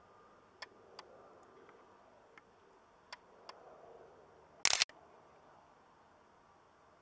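Camera handling noise: a few small sharp clicks, then one loud rasping burst about four and a half seconds in, over a faint background hiss.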